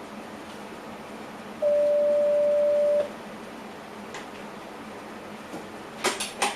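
A single steady electronic beep from the train cab's warning system, one even tone lasting about a second and a half, over the steady hum of the cab. Near the end come a few sharp clicks.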